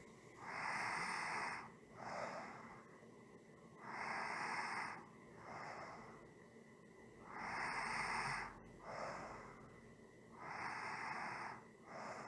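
A person breathing slowly and evenly, four breaths in all, each a longer breath followed by a short one, about every three and a half seconds.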